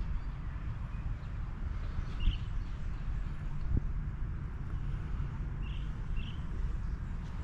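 Outdoor ambience with a steady low rumble, and short bird chirps about two seconds in and twice more near the end.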